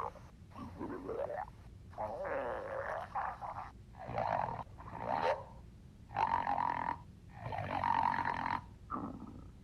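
Stomach growling: a string of about eight separate gurgles and rumbles, some with a wavering, bending pitch.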